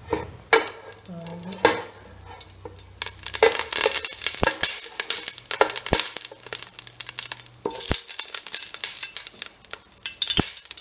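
Melted Dalda (vanaspati fat) sizzling in a steel pan, with sharp clicks and knocks of a utensil against the pan. The sizzle grows louder about three seconds in.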